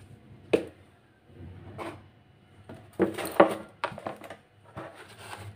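A few scattered knocks and clatters of kitchen containers and utensils being handled, the loudest cluster about three seconds in.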